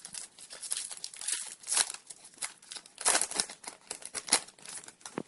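Foil trading-card pack wrapper being torn open and crinkled in the hands, in irregular crackling bursts.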